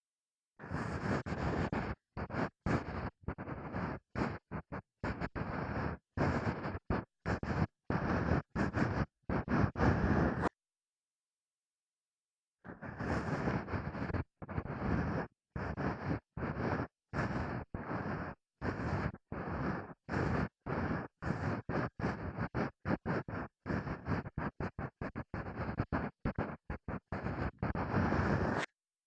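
Ear-cleaning strokes rubbing and scraping at the ear of a binaural microphone: short bursts of scratchy noise, several a second, separated by dead silence, with a pause of about two seconds near the middle.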